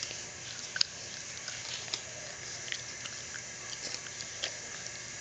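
Dollar-bill paper being folded and creased by hand, crinkling in irregular small crackles, the sharpest about a second in, over a steady background hiss.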